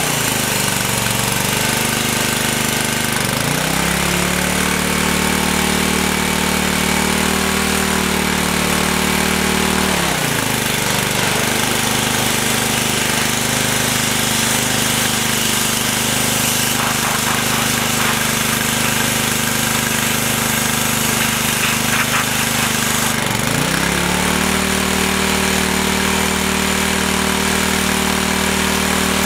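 Simonize pressure washer's 6 hp Mitsubishi engine running under the pump's load, its pitch sagging while the spray gun is triggered and climbing back when it is released: it drops at the start, rises a few seconds in, drops again about ten seconds in and rises again near the end. The hiss of the high-pressure water spray runs under it. The owner says the governor is not 100%, its shaft seized in the housing.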